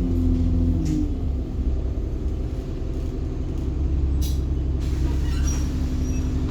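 Alexander Dennis Enviro bus running, with a steady low engine and drivetrain rumble and whining tones in the first second. A brief hiss comes about four seconds in.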